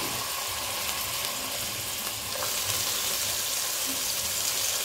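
Oil sizzling in an aluminium pot as shredded cabbage is dropped in on top of frying onion, garlic, tomato and green pepper. A steady frying hiss that turns a little sharper about halfway through.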